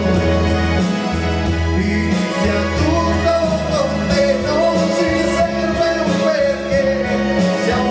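A man singing a slow ballad in Italian into a microphone, holding and bending long notes over instrumental accompaniment with a steady bass line.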